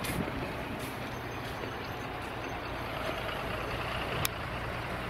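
KAMAZ garbage truck's diesel engine running steadily as it empties the rubbish bins, with one sharp clank about four seconds in.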